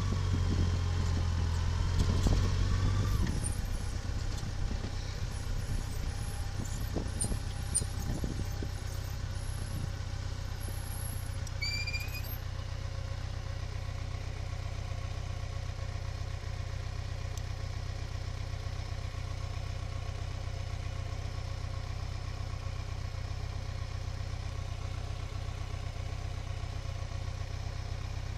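A motor vehicle's engine running steadily, louder for the first three seconds with a rising tone, then settling to an even drone. A few faint high chirps come in the middle, the last a short rising chirp about twelve seconds in.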